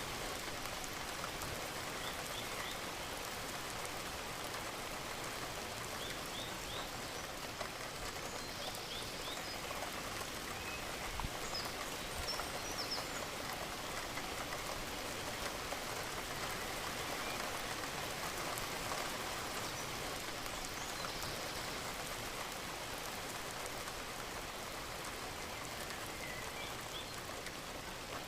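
Steady rain falling, with many small drop hits on a surface.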